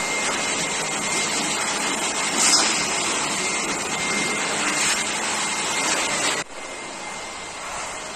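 Handheld electric air blower running steadily with a high motor whine, blowing dust off a hospital ventilator cart; it cuts off suddenly about six seconds in.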